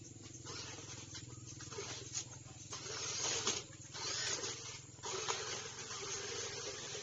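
Radio-controlled 4x4 monster truck running: a steady motor whir under bursts of tyres scrabbling over dirt, dry leaves and bricks.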